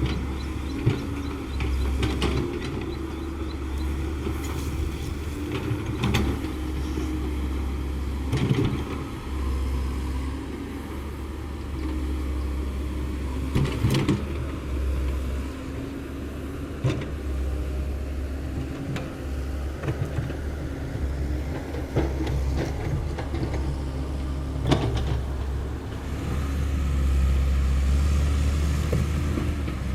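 Komatsu PC130F excavator's diesel engine running steadily, with a handful of sharp knocks and clanks from the machine at work.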